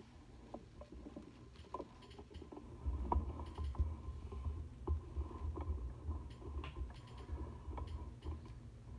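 Handling noise from the overhead camera holder and its cord being moved: scattered light knocks and rustles, with a low rumble from the jostled mount setting in about three seconds in.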